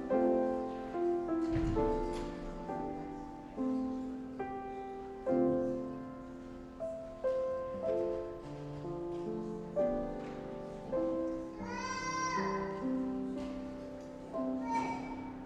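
Slow piano music, chords and single notes each struck and then dying away. About twelve seconds in, a brief wavering voice-like sound rises over it.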